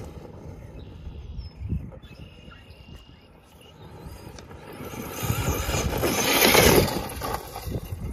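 Traxxas Sledge brushless electric RC monster truck running across a muddy field some way off: a faint motor whine and tyre noise that swells to its loudest about six to seven seconds in, then fades.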